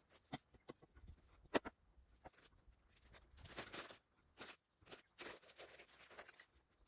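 Faint scattered clicks and short rustles of hands handling food while rolling tortilla wraps, with one sharper click about a second and a half in.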